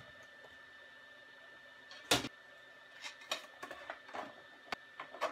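Hard plastic 3D-printer parts being handled and fitted together: one louder knock about two seconds in, then a scatter of lighter clicks and taps. A faint steady high tone runs underneath.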